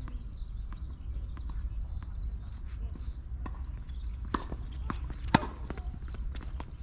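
Tennis balls being struck and bouncing on the court: a string of sharp pops, sparse at first and coming more often in the second half, the loudest about five seconds in, over a low steady rumble.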